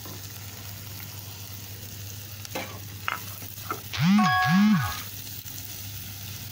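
Chopped shallots, curry leaves and green chillies frying in coconut oil in a clay pot, a steady sizzle, with a spatula scraping the pot a few times. About four seconds in, a louder low call rises and falls twice, lasting about a second.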